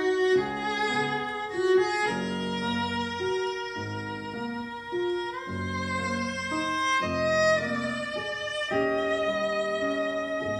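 Recorded classical string music, a violin melody of held notes over lower strings, played back through an old McIntosh hi-fi amplifier.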